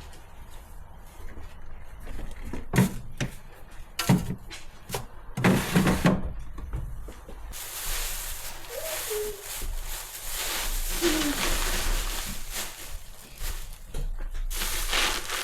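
Household handling noises: a few sharp knocks and thuds, like a cupboard door or objects being set down, about three, four and six seconds in. From about halfway there is a steady rustling hiss to the end, with two faint short squeaks.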